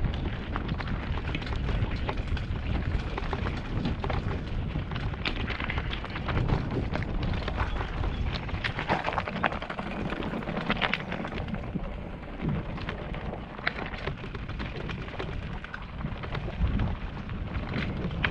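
Mountain bike riding fast down a loose rocky trail: knobby tyres crunching over stones, with the bike clattering over the bumps in dense, irregular clicks. A steady low rumble of wind on the microphone runs underneath.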